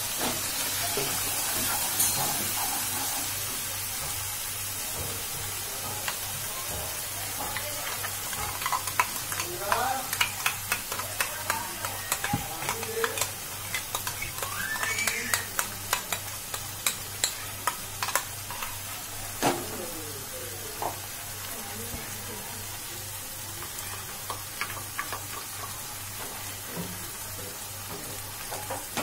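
Oil sizzling in a nonstick kadai as ginger-garlic paste and masala fry, with the hiss strongest at the start. A wooden spatula stirs and scrapes, knocking sharply and quickly against the pan through the middle stretch.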